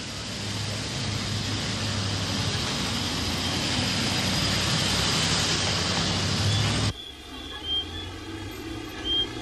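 Minibus driving along a street: engine running under a steady rush of traffic noise, which cuts off abruptly about seven seconds in. After that there is a quieter steady hum with a few short high chirps.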